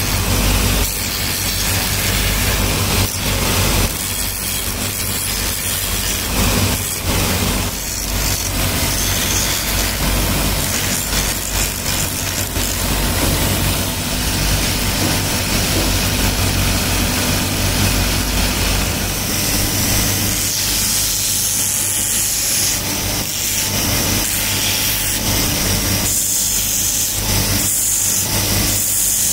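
Motor-driven grinding wheel running with a steady hum while a steel knife blade is pressed against it, grinding with a rasping noise that turns harsher and hissier about two-thirds of the way through.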